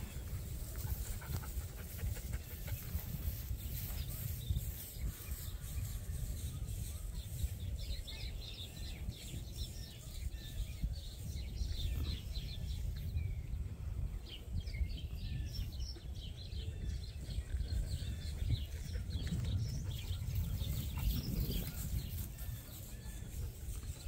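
Small birds chirping and twittering on and off over a steady low rumble.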